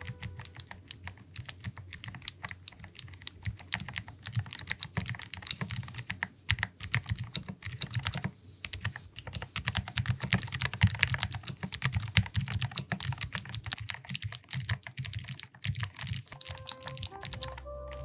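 Fast, continuous typing on a Lofree Foundation mechanical keyboard fitted with clicky switches, each keystroke a sharp click, with a couple of brief pauses.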